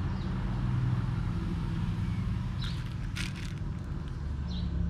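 Steady low engine hum from a motor vehicle running. About three seconds in, a few light clicks from handling the fishing reel's parts.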